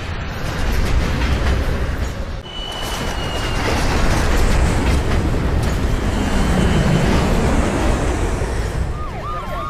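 Loud, steady rumbling roar of an airliner plunging down. Near the end an emergency siren starts wailing, rising and falling.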